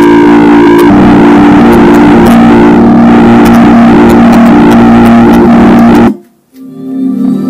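Music with heavy sustained bass notes playing very loudly through a Kentiger V10 class-D amplifier and loudspeaker, distorted as the camera records it. About six seconds in the music cuts out suddenly, then comes back in over a second or so.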